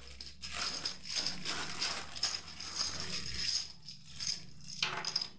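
A thin plastic bag crinkling as it is handled, with small plastic domino blocks rattling and clicking against each other as they are shaken out of it, and a sharper click near the end.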